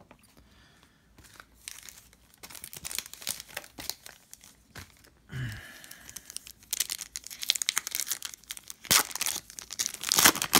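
Foil wrapper of a trading-card pack crinkling as it is handled, then torn open, with two sharp rips near the end.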